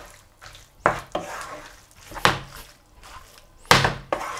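Spaghetti being tossed with metal tongs in a frying pan: three sharp knocks against the pan, spaced about a second and a half apart, with soft stirring and squelching between them.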